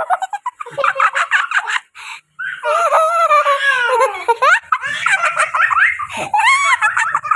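High-pitched giggling and squealing laughter from a person, with long pitch glides that rise and fall.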